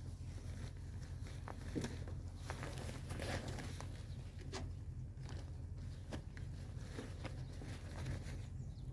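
Cats' paws scratching and pattering in a play tunnel: scattered light scratches and taps, with a steady low hum underneath.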